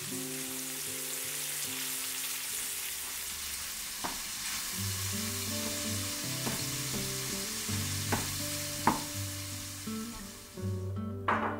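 Beaten eggs sizzling in a frying pan as they are stirred and scrambled with a wooden spatula, with a few sharp knocks of the spatula against the pan. The sizzle stops near the end, and a clink follows just before the end.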